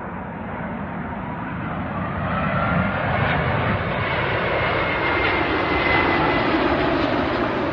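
Airbus A380 jet airliner on landing approach, its four Rolls-Royce Trent 900 turbofans making a steady roar with a high whine over it. It grows louder from about two seconds in as the aircraft nears.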